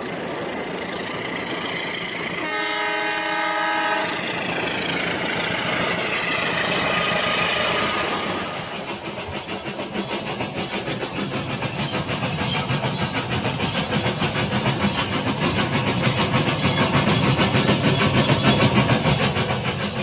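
Rail King toy train set running on its track: a horn sounds for about a second and a half, about two and a half seconds in, over a steady hiss. After that, a fast, even rhythmic clatter takes over and grows louder as the train comes closer.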